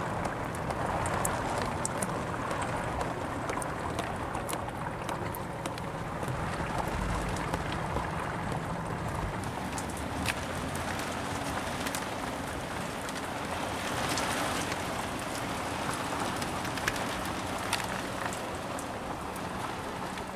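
Steady rain falling on a boat, heard from inside its cabin, with scattered sharp ticks of individual drops.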